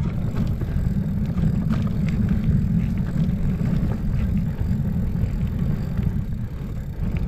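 Mountain bike riding fast over dirt singletrack, heard through the on-board camera: a steady low rumble of wind on the microphone and tyres on the trail, with scattered clicks and rattles from the bike jolting over the ground.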